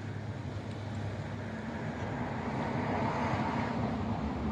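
Steady outdoor noise of wind and sea surf washing on rocks, with a low steady hum underneath; the rush swells up around the middle.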